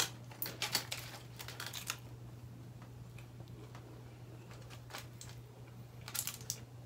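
Aluminium foil crinkling and fingers tearing at a roast chicken, in two clusters of short crackles: one in the first two seconds and another about six seconds in.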